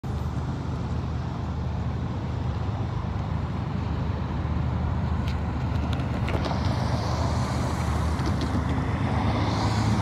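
Road traffic at a railroad grade crossing: cars and a pickup driving by, a steady rumble of engines and tyres, with tyre hiss swelling over the last few seconds as a vehicle passes close.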